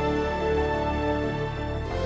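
Slow, sad theme music with long held notes over the title sequence.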